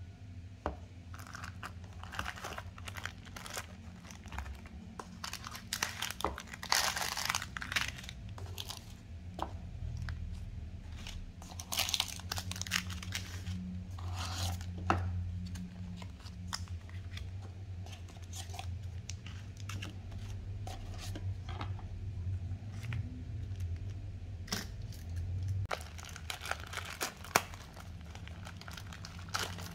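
Plastic packaging of an instant noodle cup being unpacked by hand: cellophane and foil sachets crinkling and rustling, with sharp crackles and bits of tearing in irregular bursts. A low steady hum runs underneath.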